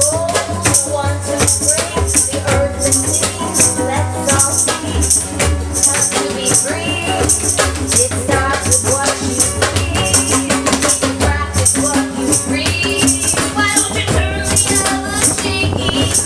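Live acoustic music: a shaker keeps a steady rhythmic beat over a bass line, with a wavering melody line above.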